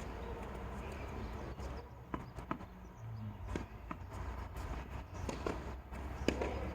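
Tennis ball knocks on a court: several sharp, irregular knocks from the ball being hit and bouncing, with players' footsteps, over a low steady rumble.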